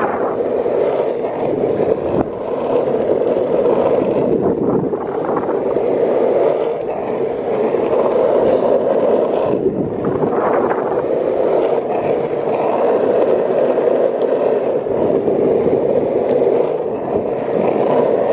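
Longboard wheels rolling over rough asphalt: a steady rolling rumble that swells and eases a little as the board moves along.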